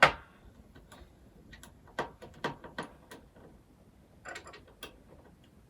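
Small screwdriver clicking and ticking against the tiny back screws and casing of a phone being taken apart: a sharp click at the start, then scattered light ticks, with a quick cluster of clicks near the end.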